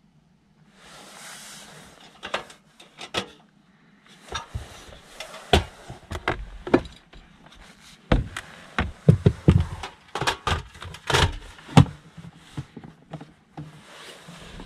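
Rustling and a run of sharp clicks, knocks and thumps as gear is handled inside a car's small cabin, with the knocks coming thickest in the middle stretch.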